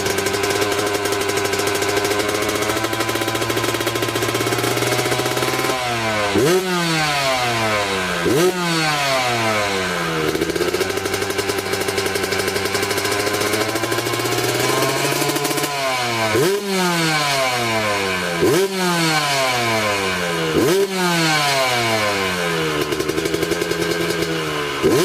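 125 cc trail motorcycle engine idling, then revved in six quick throttle blips, each rising sharply in pitch and falling back to idle, with a steady idle stretch between the second and third blips.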